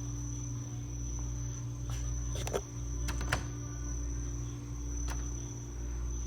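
Steady indoor hum: a low mechanical or electrical drone with a thin, high, steady whine over it. A few sharp clicks come about two and a half to three and a half seconds in.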